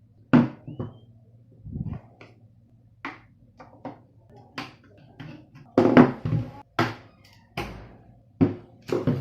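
A string of irregular sharp clicks and knocks from plastic parts and tools being handled during a soundbar teardown, over a steady low hum.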